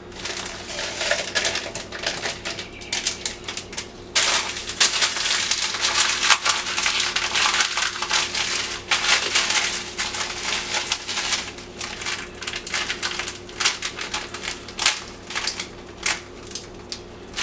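Crinkly material being crumpled and handled: dense crackling with many small clicks, louder from about four seconds in.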